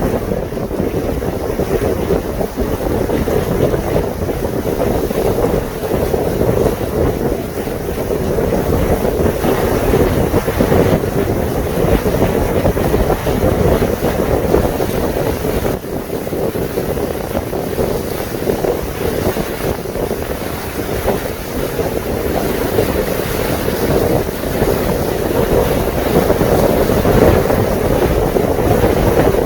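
Wind buffeting the microphone aboard a boat under way on a lake, with a steady rushing noise of the boat and water beneath it.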